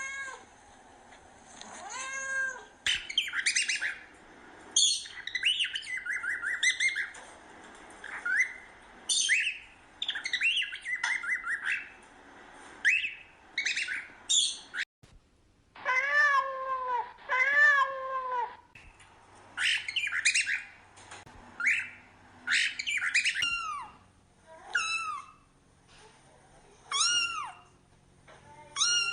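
A cat meowing again and again, drawn-out rising-and-falling meows, while a cockatiel chirps and whistles in quick high bursts between them.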